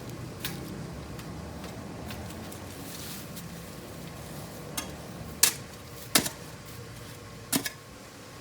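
Hand tool digging and scraping out soil beside concrete, with a handful of sharp knocks, the loudest a little past the middle.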